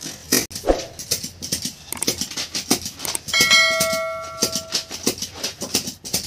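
Small hand stamp striking a stack of paper forms again and again, quick sharp thumps about three a second. About three seconds in, a bell-like ringing tone sounds for about a second and a half, then fades.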